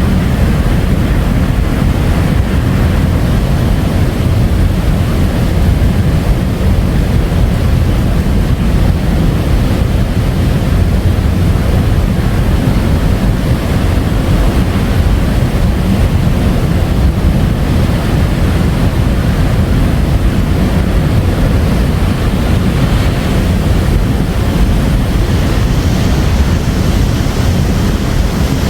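Ocean surf: a steady, unbroken rush of waves, heaviest in the deep low end, with no separate wave breaks standing out.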